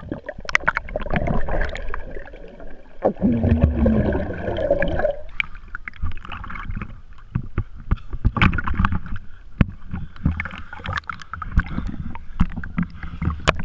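Lake water splashing and lapping against a hand-held waterproof camera at the surface, with many sharp droplet ticks and stretches of muffled underwater gurgling as it dips below.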